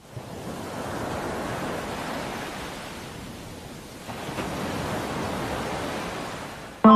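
Steady rushing hiss of noise with no tune in it, like air or surf. It sags a little around three seconds in and jumps back up about four seconds in.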